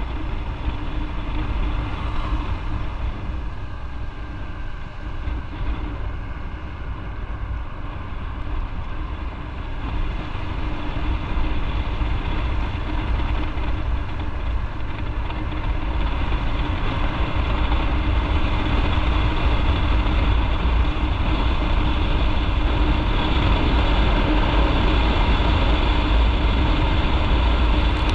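Motorcycle on the move, its engine running steadily under a heavy low rumble. The whole sound grows louder from about ten seconds in.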